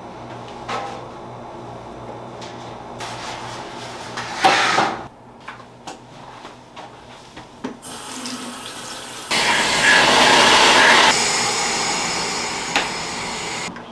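Water running from a tap. It comes on about eight seconds in, gets louder about a second later, and tapers off near the end. Before that there are small rustles and knocks, with one louder rustle about four seconds in.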